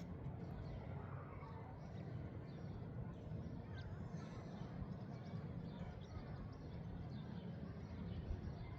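Wind blowing, a steady low rumble, with faint scattered high chirps over it.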